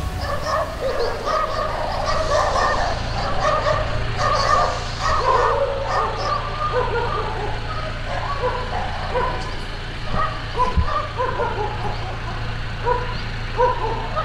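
Dogs barking over and over, in quick, closely spaced calls that come thickest in the first half, with a low steady rumble underneath.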